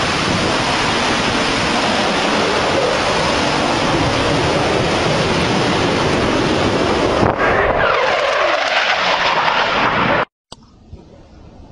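Fighter jet on a low pass, a loud steady jet roar with a whine that falls in pitch as it goes by about eight seconds in. It cuts off abruptly just after ten seconds, leaving quieter wind noise on the microphone.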